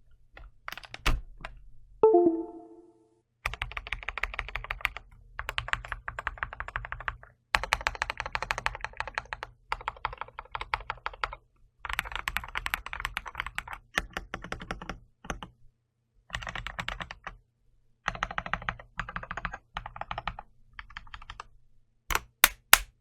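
Computer keyboard being typed on in fast runs of rapid key clicks with short pauses between them. A short pitched sound comes about two seconds in, and a few sharp, loud clicks come near the end.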